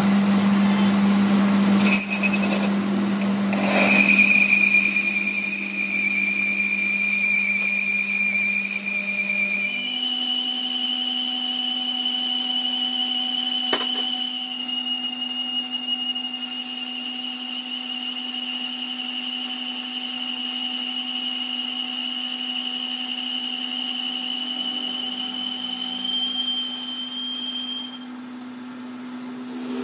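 Metal lathe running with a boring bar cutting inside a spinning steel workpiece, a steady motor hum under a high-pitched whine from the cut. The hum steps up in pitch about a third of the way in. Near the end the whine stops and the sound drops away.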